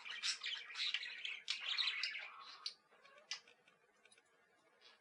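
Sun conures' faint clicking and soft chatter, lasting about three seconds, then near silence.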